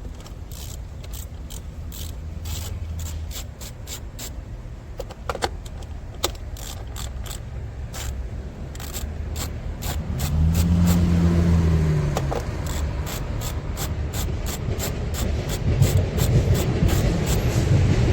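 Socket ratchet clicking in quick runs as the 10 mm fasteners of the plastic engine covers are undone, with tools and parts rubbing and scraping. A low hum swells and fades about ten seconds in.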